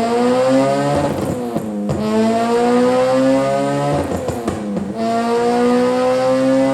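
K20-swapped Honda Civic engine revving. Its pitch climbs steadily and drops suddenly twice, about two and five seconds in, then climbs again.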